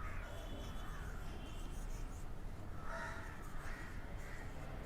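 Crows cawing faintly in the background, several calls with a cluster about three seconds in.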